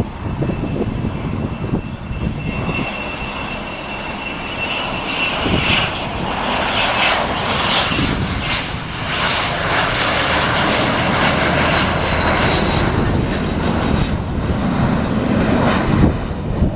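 Gulfstream G150 business jet's twin turbofan engines passing. A high whine slides slowly down in pitch over a broad rush of engine noise, growing louder toward the middle and then easing.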